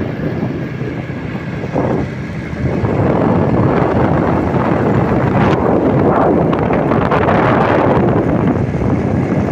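Wind buffeting the microphone of a handheld phone on a moving motorbike, over the bike's engine and road noise. It gets louder about three seconds in.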